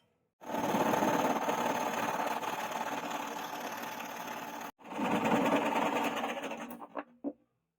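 Electric power tool running under load, with a steady whine. It breaks off sharply for a moment, runs again, then winds down and ends with two short clicks.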